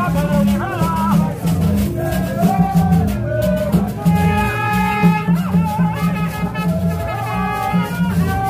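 Haitian rara band playing: vaksen tube trumpets hocket a repeating low riff over hand drums and rattling percussion. Higher held horn notes join about four seconds in.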